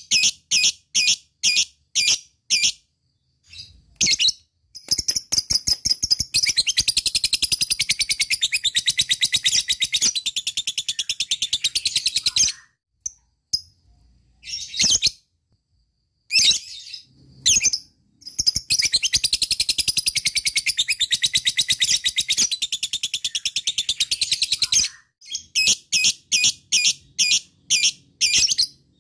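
Blue masked lovebird calling: sharp separate chirps about three a second (ngetik), then a long rapid chattering trill (ngekek) of about seven seconds, a few chirps, a second trill of similar length, and separate chirps again near the end.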